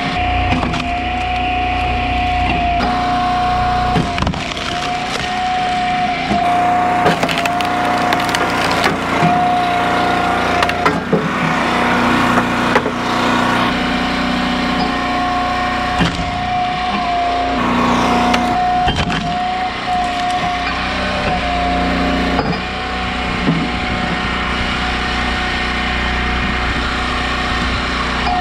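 Engine-driven hydraulic log splitter running steadily while its ram forces firewood through the wedge, the wood cracking and splintering in a run of sharp snaps, thickest in the middle.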